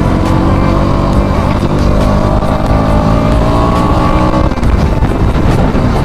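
KTM Duke 200's single-cylinder engine running under a rider, heard with low rumble on the helmet microphone; the engine note climbs slightly, then drops about four and a half seconds in as the throttle is eased off.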